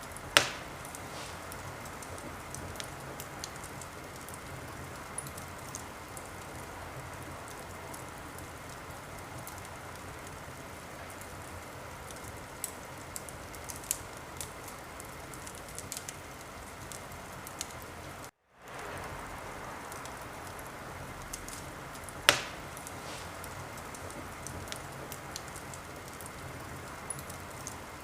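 Wood fire crackling over a steady soft hiss, with scattered small crackles and two loud pops, one right at the start and one about four fifths of the way through. A split-second gap of silence comes about two thirds of the way in.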